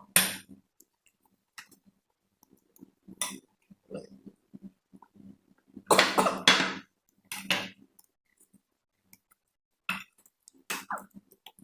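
People eating spicy noodles: scattered short bursts of slurping and coughing, the longest cluster about six seconds in, with quiet gaps between.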